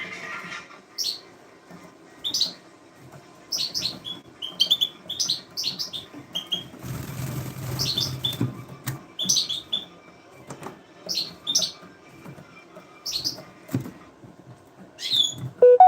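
Birds chirping in short, sharp calls repeated every second or so. About seven seconds in there is a stretch of about two seconds of rustling noise.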